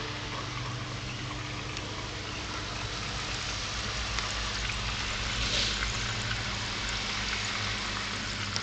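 Steady trickling and splashing of water from the filter or pump outflow in a paludarium's water section, over a low, steady hum.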